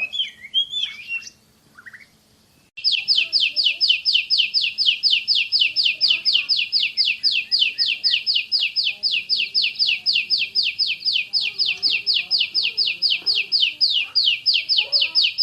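Oriental magpie-robin (kacer) singing: a few varied warbled notes, then after a short pause a long rapid-fire run of one sharp, falling whistle repeated about five times a second, the fast 'shooting' song. Faint other chirps lie underneath.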